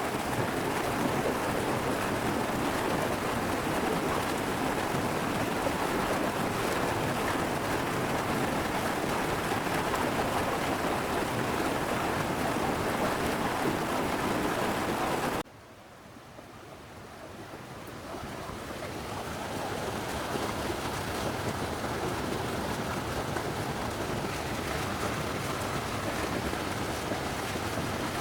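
A steady rushing noise with no distinct events. About halfway through it cuts out suddenly, then fades back up to the same level over a few seconds.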